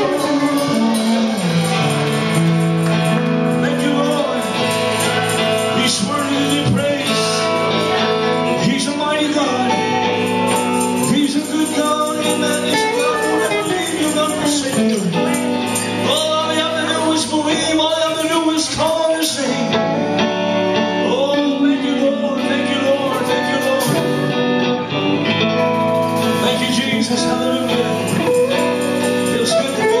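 A man singing a worship song while strumming an amplified electric guitar.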